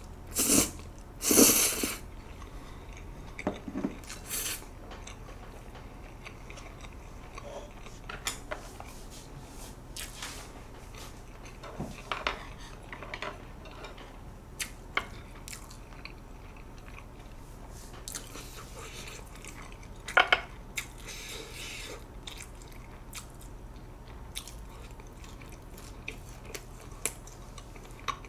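A man slurping spicy mixed barley noodles, two loud pulls in the first two seconds. Then close-miked chewing with small wet mouth clicks, and one more short loud burst about twenty seconds in.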